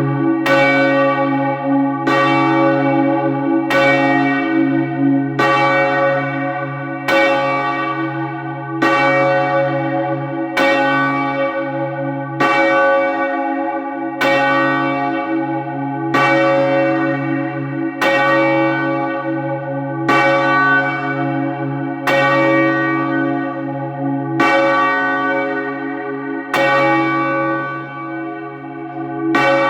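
A heavy church tower bell being rung up: the clapper strikes in pairs, one on each swing, and each strike is followed by a long, deep ring. The strikes come further apart as the bell swings higher toward the balance.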